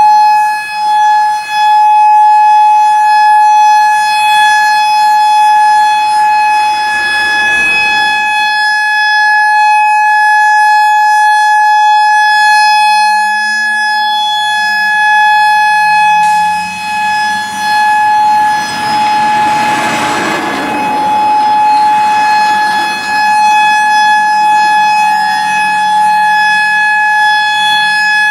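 Federal Signal EOWS 612 electronic outdoor warning siren sounding its steady Alert tone, one unbroken high pitch held without rising or falling, for a tornado siren test. A faint low rising sound comes in about halfway, and a brief swell of noise comes about two-thirds of the way through.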